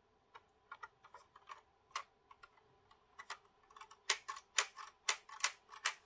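Small plastic clicks and taps from handling a Roco model railway passenger coach, fingers working at its coupler and bogie. Scattered faint clicks at first, then a run of about six louder clicks, roughly three a second, from about four seconds in.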